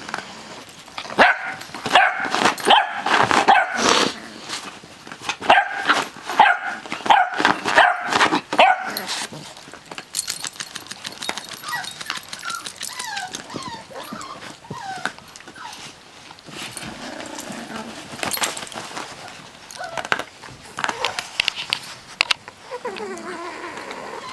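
Puppies yipping and barking in short bursts, loudest over the first nine seconds or so, then quieter scattered calls.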